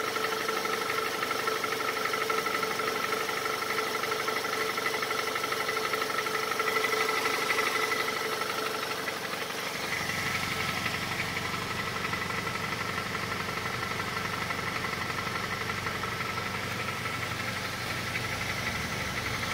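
Honda CR-V 2.4 i-VTEC four-cylinder petrol engine idling while warming up, with a diesel-like knocking that the owner traces to the exhaust tract near the muffler. The knock is easing as the engine warms. About ten seconds in, the low rumble comes up.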